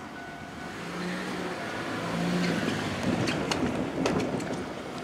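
A vehicle passing close by, growing louder to a peak about four seconds in, with a run of sharp clacks near the peak.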